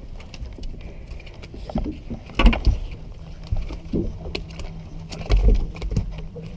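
Irregular knocks, clicks and thumps on a fiberglass boat deck as a small, lively striped bass on the leader is swung and grabbed for unhooking. Two heavier thumps stand out, about two and a half and five and a half seconds in.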